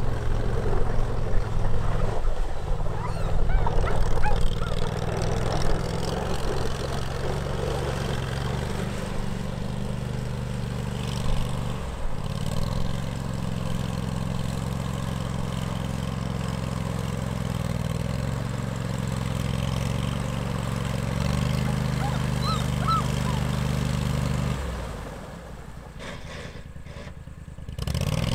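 Argo 6x6 amphibious vehicle's engine running as the tracked machine tries to push across a fast-flowing stream, its revs stepping up and down. Water splashes around it during the first few seconds, and the engine drops away sharply about three seconds before the end, then picks up again.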